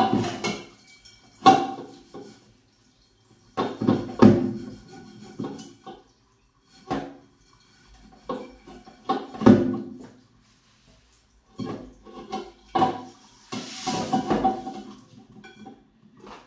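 A metal pot being scrubbed with a sponge and handled in a stainless steel sink: irregular bouts of scrubbing and clanks with short pauses between them, and a rush of tap water about fourteen seconds in.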